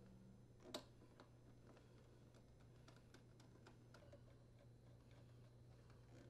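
Faint, irregular clicks and ticks of a hand screwdriver driving screws into a dryer door's latch plate, with one sharper click about a second in.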